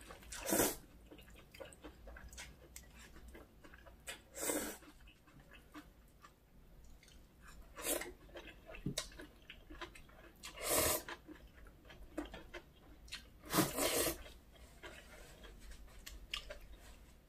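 Close-up eating sounds of spicy whelk noodles and water parsley pancake being chewed, with about five short, louder mouth noises a few seconds apart.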